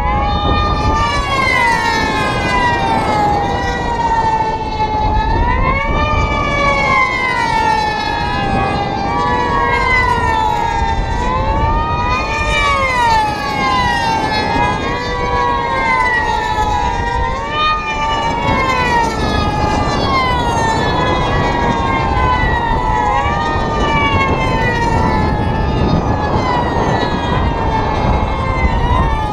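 Several Q40 pylon-racing model airplanes' two-stroke glow engines running at full throttle, a high overlapping whine whose pitch rises and falls over and over as each plane passes on the course.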